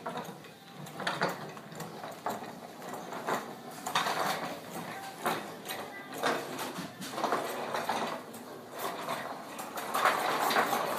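Wooden toy train made of walnut and maple, dragged on a string across a ceramic tile floor, its wooden wheels and body clattering and scraping unevenly.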